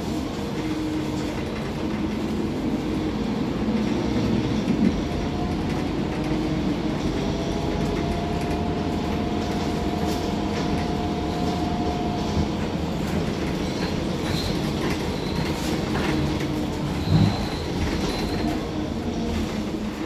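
Mercedes-Benz OC500LE bus heard from inside the cabin while driving: a steady engine and road rumble with rattling, a faint steady whine in the middle stretch, and a short thump about 17 seconds in.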